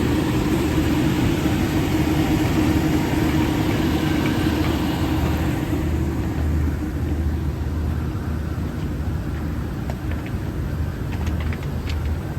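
Rooftop exhaust fans running with a steady low hum and rushing air; the airy hiss fades about halfway through while the low hum continues, with a few light clicks near the end.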